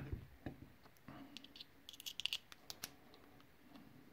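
Faint small metal clicks and ticks as a tiny screw is picked up and started into a lock cylinder's brass tailpiece with a small screwdriver, with one sharp knock at the very start.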